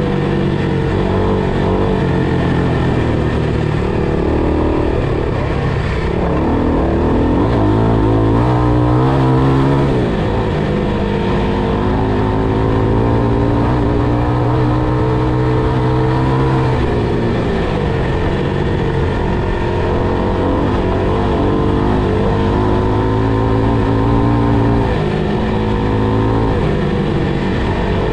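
FPV quadcopter's brushless motors and propellers whining, the pitch rising and falling again and again as the throttle changes.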